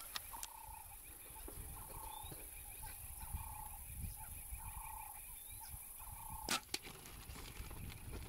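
A bird calling over and over, a short low call about once a second, with one sharp click about six and a half seconds in.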